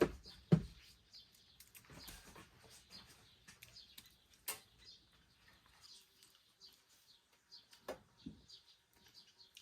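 Birds chirping faintly in the background, with two heavy thumps in the first second and a couple of sharper knocks about four and a half and eight seconds in.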